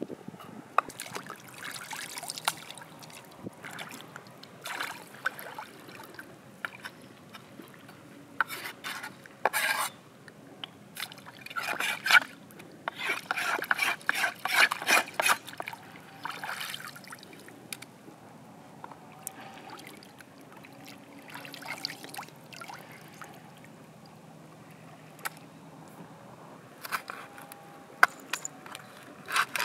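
Shallow seawater splashing and trickling in irregular bursts as fish and a wooden cutting board are rinsed and sloshed in it, busiest about halfway through. Near the end, sharp clicks of a knife on the wooden board as the fish is cut.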